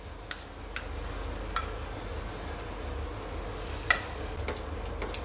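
Sugar syrup, cooked to one-thread consistency, bubbling steadily in a nonstick pan while crumbled homemade khoya is dropped in. A few short clicks sound through it, the sharpest about four seconds in.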